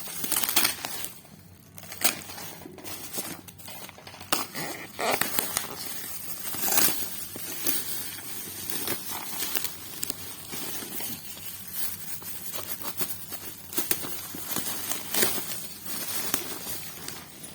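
Packaging being handled and unwrapped: irregular crinkling, rustling and crackling with occasional sharp clicks.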